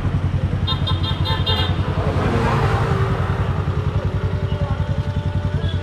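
Motorcycle engine running on the move, a steady low pulsing, with a quick run of short high beeps about a second in.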